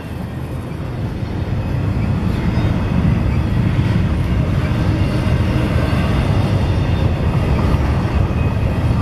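Double-stack intermodal freight train rolling past: a steady, heavy rumble of well cars on the rails, growing louder over the first few seconds and then holding.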